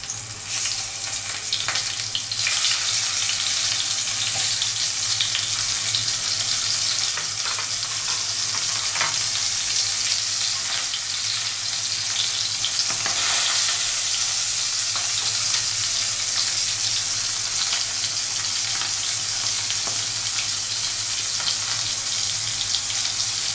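Pieces of tilapia frying in hot mustard oil in a kadai, a steady sizzle with scattered sharp crackles and spits of oil. The sizzle grows louder over the first couple of seconds and then holds steady.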